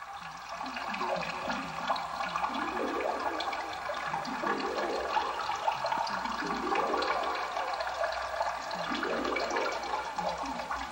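Steady bubbling, gurgling watery sound on an animation's soundtrack, a dense stream of many quick rising blips.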